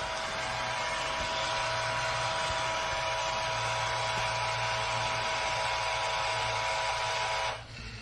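iRobot Roomba j7+ robot vacuum running: a steady motor whine with two held tones over a hiss and a low hum, cutting off suddenly near the end.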